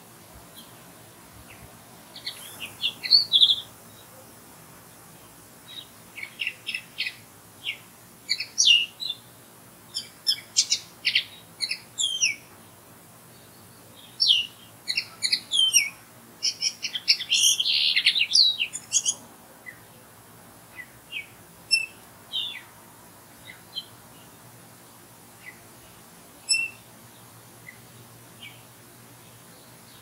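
Common linnet singing: quick twittering runs of short, high, varied notes, coming in a dense string of phrases and thinning to a few scattered single notes in the last third.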